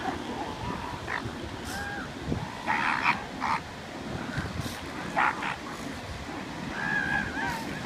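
Elephant seals calling across a crowded rookery: several short yelping cries, with harsh rasping calls about three seconds in and again just past five seconds, over the steady wash of surf.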